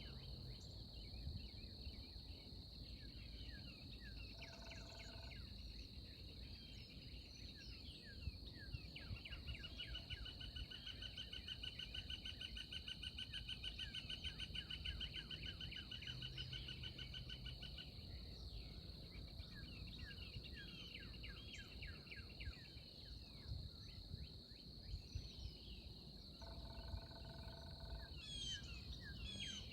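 Outdoor rural ambience: many small birds chirping over a steady, high insect drone. About nine seconds in, a rapid trill starts and runs for about nine seconds.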